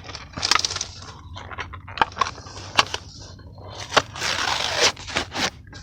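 Toy car packaging being handled and opened: scattered sharp clicks and crinkles, then a longer rustling tear about four seconds in.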